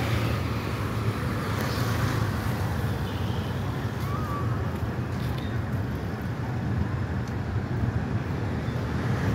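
Steady road traffic noise from motorcycles, cars and a truck in congested city traffic, their engines giving a continuous low hum.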